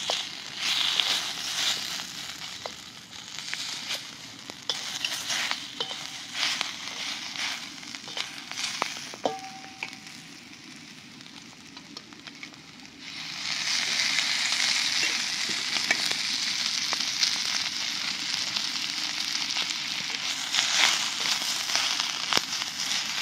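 Onion pieces frying in a drop of oil on a hot tawa over a wood fire, sizzling while a wooden spatula stirs and scrapes them. About halfway through, the sizzle turns loud and steady.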